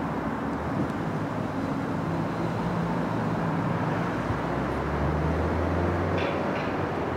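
Urban road traffic: steady tyre and engine noise from passing vehicles, with a heavier low engine drone, such as a bus's, building about five seconds in.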